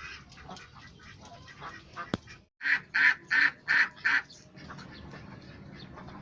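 A domestic duck quacking five times in quick succession, about three quacks a second, starting a little under three seconds in, just after a sharp click.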